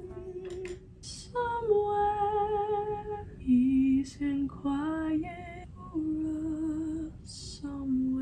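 A woman singing slow, held notes with a slight vibrato, each note lasting a second or more, with a few soft hissing consonants between them.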